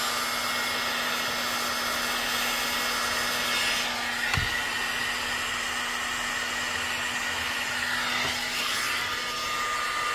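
Electric heat gun blowing steadily, shrinking heat-shrink tubing over a soldered wire splice. There is a brief light knock about four seconds in.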